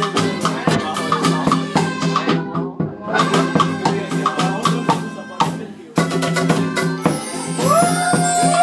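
Music with a steady beat of shakers and drums over held chords, briefly dropping out twice; a held melody line comes in near the end.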